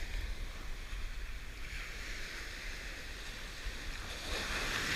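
Small surf breaking and washing up a sandy beach, a wash of foam building near the end, over a low wind rumble on the microphone.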